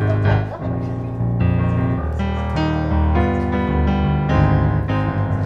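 Background music on piano or electric keyboard: a melody of changing notes over sustained low bass notes.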